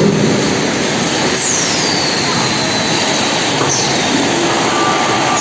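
Automatic packing-line machinery running: a loud, steady mechanical din, with a faint high squeal that slides down in pitch about a second and a half in.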